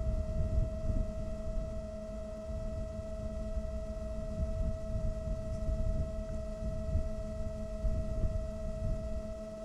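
Steady electronic whine at one unchanging pitch with fainter overtones, over a low, uneven rumble.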